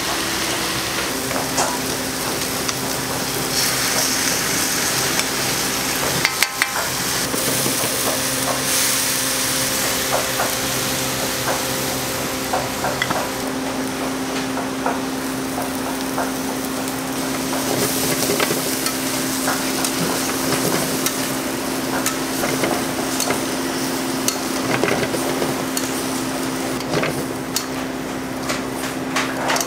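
Bean sprouts sizzling and frying in a hot wok over a gas burner, stirred with metal tongs that click against the wok, more often near the end. A steady low hum runs underneath.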